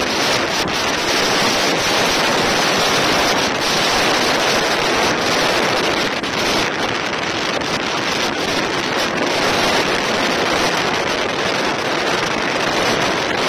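Steady wind buffeting the microphone and rushing water as an inflatable speedboat runs at speed across choppy water.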